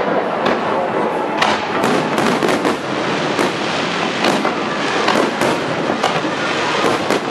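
Aerial firework shells bursting in quick succession, several sharp bangs a second over a continuous crackle.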